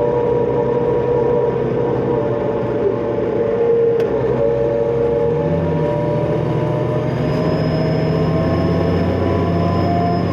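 Cummins ISL diesel engine of a 2005 New Flyer D40LF transit bus running, with the deeper engine note strengthening about halfway through as it comes under load. A thin high turbocharger whine comes in about two-thirds of the way through.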